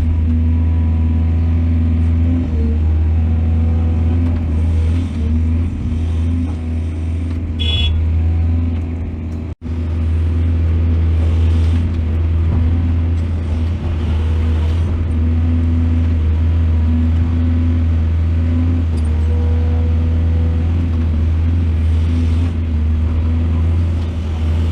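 Heavy excavator's diesel engine running steadily with a deep low hum, with a brief high squeal about eight seconds in. The sound drops out for an instant just before ten seconds.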